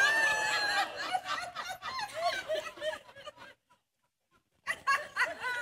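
Congregation laughing at a joke, the laughter thinning out and dropping away to near silence for about a second, then picking up again near the end.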